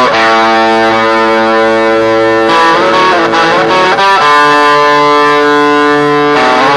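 Stratocaster-style electric guitar playing long held chords that ring on, changing chord about two and a half seconds in, with a brief sliding passage a second later, then another long held chord that changes near the end.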